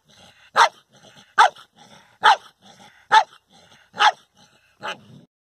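A dog barking six times at an even pace, about one bark a second, the last bark weaker than the rest.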